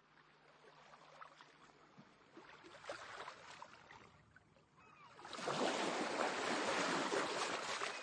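Sea surf: waves washing in, swelling to a loud breaking wave about five seconds in and then easing off, with a few short high cries over it.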